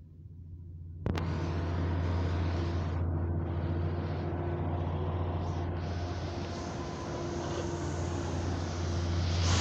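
Steady low mechanical hum with a hissy wash over it, cutting in abruptly about a second in and holding steady: heavy machinery running.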